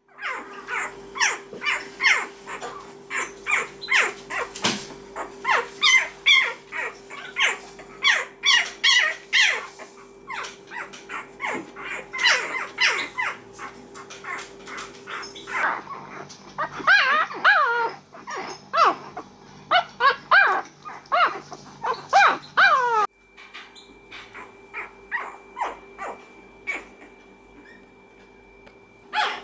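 A litter of one-week-old Shar Pei puppies squeaking and whimpering in many short, high cries, often several in quick succession. Around the middle there are longer whines that rise and fall in pitch.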